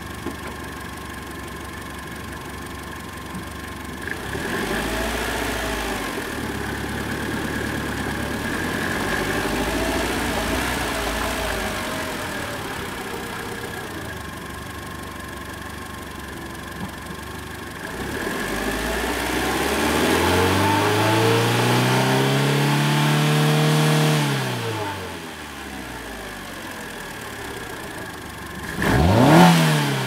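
Fiat Grande Punto 1.4 petrol engine idling and being revved with the car standing still. Near the start the revs rise and fall slowly. Midway a longer rev climbs, is held for a few seconds and falls back to idle. Near the end a quick sharp blip is the loudest moment.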